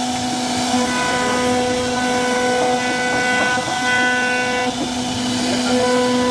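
CNC router spindle cutting wood: a steady whine at one unchanging pitch over the hiss of the cut, its higher tones coming and going as the cut goes on.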